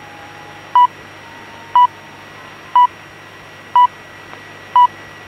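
BBC Greenwich Time Signal over shortwave radio: five short, high beeps one second apart, counting down to the top of the hour, over steady reception hiss.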